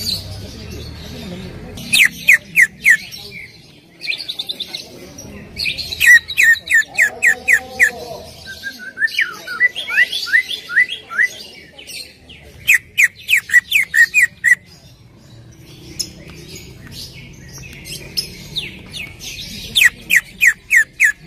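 Green leafbird (cucak ijo) singing: phrases of quick, sharp, falling notes in fast runs, each phrase a second or two long with short pauses between and a quieter stretch in the middle. It is a lure song (pancingan), played to get caged leafbirds to answer and sing.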